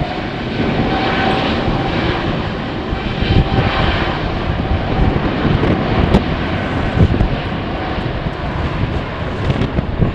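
Jet airliner's engines running with a steady high whine over a broad roar. Strong gusty wind buffets the microphone.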